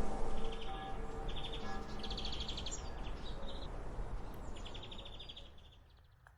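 Music with heavy bass and short chirping high notes, fading out gradually to near silence near the end.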